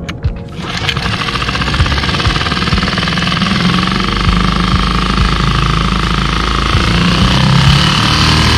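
Tohatsu SailPro 6 hp four-stroke outboard motor comes up about half a second in and runs steadily. It has just had its fuel filter, found full of black crud, refitted after stalling at idle, a fuel delivery problem the owner puts down to a clogged filter.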